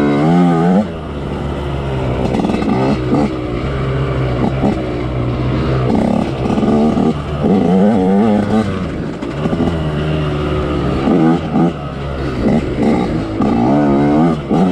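Two-stroke dirt bike engine revving up and down in quick surges while ridden along single track, its pitch rising and falling with each burst of throttle.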